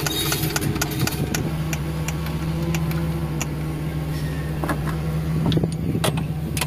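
An engine idling steadily, with a handful of sharp metallic clicks and taps from a socket wrench working on the injection-pump fittings.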